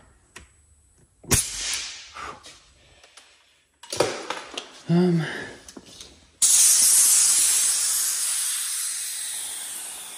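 Compressed air hissing out of a portable 12-volt tire-inflator compressor's hose through its inflator gun. The hiss starts suddenly about six seconds in and slowly fades as the line's pressure bleeds off. Before it come a brief hiss and a few knocks from handling the hose and fittings.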